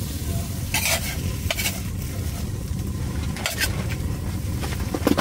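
Food sizzling in a frying pan over a steady low rush, with a few sharp clinks of a utensil against the pan.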